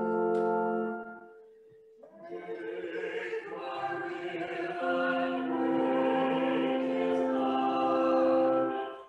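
Choral music with voices singing held notes: one chord fades out about a second in, and after a short pause a new passage begins and builds.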